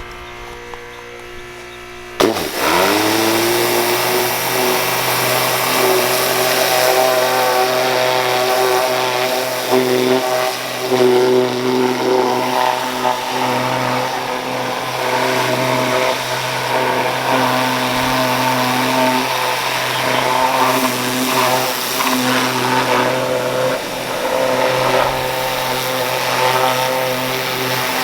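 Pressure washer starts about two seconds in, its pitch rising quickly and settling into a steady run, with the hiss of the water spray over it.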